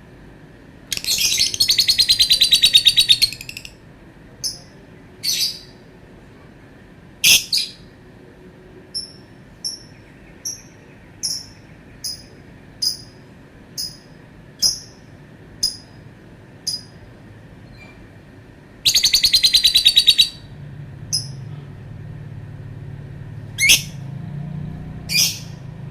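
Lovebird singing: a long, rapid chattering trill about a second in, a run of short, sharp chirps at roughly one a second, then a second long trill about three quarters of the way through.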